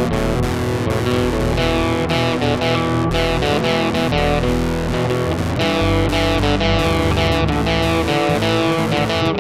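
Background music: a guitar-led track with strummed and electric guitar over bass.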